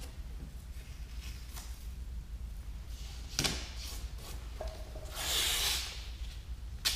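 Masking tape being pulled off the roll and pressed onto a pickup's paint around the taillight: soft rubbing and scuffing strokes, then a hiss about a second long a little after halfway, and a sharp click near the end.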